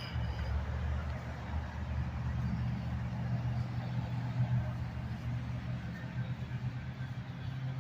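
Motor vehicle engine running with a steady low hum, over a haze of street noise.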